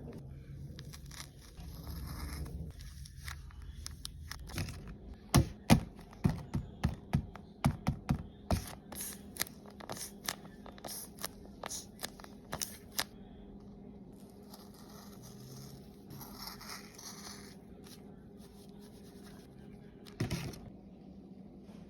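Scissors cutting into a paper squishy: a run of sharp snips, about two a second, through the middle, with paper scraping and crinkling before and after. One soft thump near the end.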